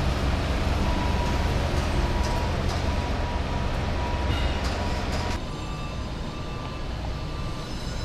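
Steady low mechanical rumble of construction-site machinery, with a faint steady hum above it; the rumble drops away about five seconds in, leaving a thinner hum.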